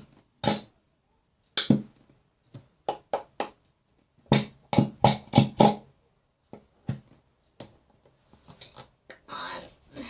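Nearly empty plastic glue bottle being squeezed and worked to force out the last glue: a series of short, sharp sputters, scattered at first and then coming quickly in a cluster about halfway through.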